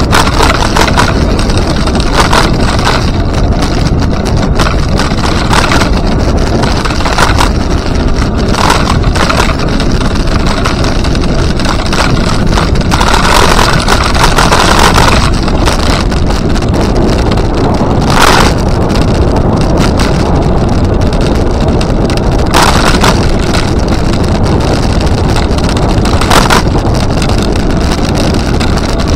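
Loud, steady wind rumble on the microphone of a camera moving along a trail, with brief brighter rushes every few seconds.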